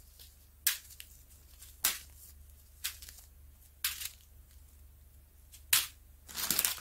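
Small plastic bags of diamond-painting drills crinkling as they are picked up and handled, in short rustles about once a second, with a longer crinkle near the end.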